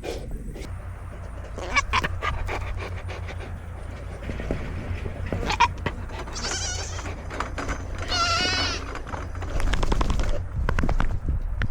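Nigerian Dwarf goats bleating: two wavering bleats about six and eight seconds in, the second louder, over scattered knocks and a steady low rumble from the goat-mounted camera.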